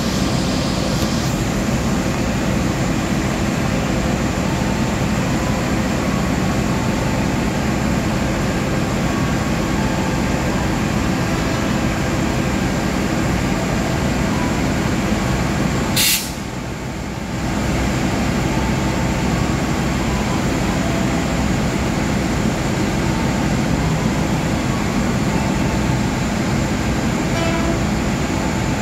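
Diesel locomotive and generator power car of a long-distance passenger train running steadily at idle while standing at the platform. About sixteen seconds in comes one short, sharp hiss of air, and the running noise drops for a moment after it.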